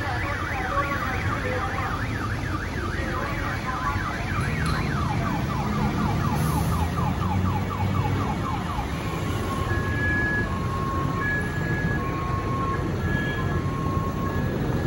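Car alarm sounding: a rapid warbling sweep, about four cycles a second, then from about nine seconds in a two-tone pattern that alternates between a high and a low note. A low rumble grows underneath from about four seconds in.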